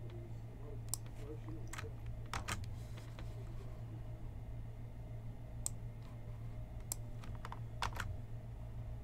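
Scattered clicks of a computer mouse and keyboard, a dozen or so at irregular intervals with a few quick pairs, over a steady low hum.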